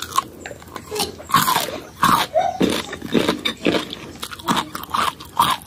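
Eating soft, ripe marang fruit close to the microphone: irregular chewing and smacking mouth sounds as the flesh is pulled off the seeds.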